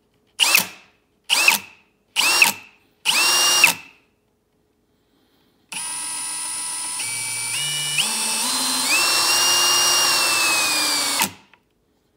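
Parkside Performance PSBSAP 20-Li B2 cordless hammer drill motor run up with no load: four short trigger blips, each a little longer than the last, then a longer run of about five seconds. On that run the whine climbs in steps as the variable-speed trigger is squeezed further, then stops abruptly when it is released.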